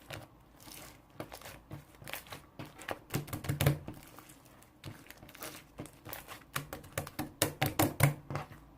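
Irregular clicks, taps and crinkling, like objects or packaging being handled, with a few louder knocks about three and a half seconds in and again near the end.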